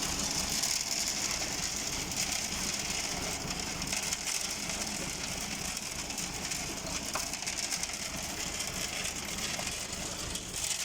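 Tractor engine running steadily, driving a PTO-powered transit concrete mixer whose turning drum tumbles stone and cement with a continuous rushing, gritty noise.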